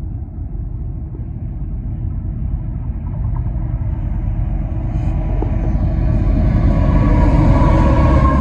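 Union Pacific freight train's diesel locomotives, an EMD SD70ACe-T4 leading three GE units, approaching and passing close by. Their deep engine rumble grows steadily louder, with more wheel and rail noise coming in over the last few seconds.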